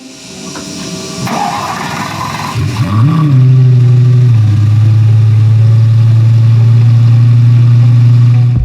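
A car engine starting: it cranks, catches about three seconds in with a brief rev, then settles into a steady idle.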